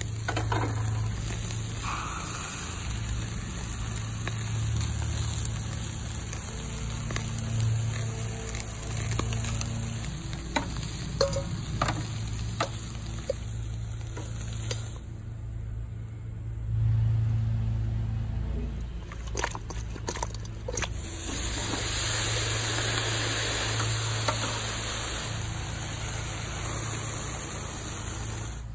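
Chicken wings sizzling on a charcoal grill as sauce is poured over them and drips onto the hot grate, with scattered sharp metallic clicks from tongs and the sauce pot.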